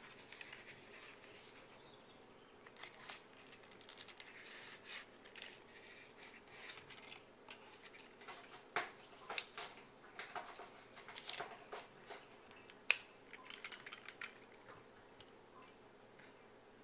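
Faint handling of a fountain pen and its paperboard box: light rustling and scraping as the box is slid open and the pen taken out, then several sharp plastic clicks as the pen and its clear plastic cap are handled, the loudest about two-thirds of the way through.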